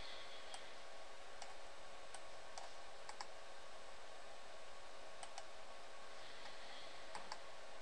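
Computer mouse buttons clicking: about ten scattered clicks, some in quick pairs like double-clicks, over a steady low hiss.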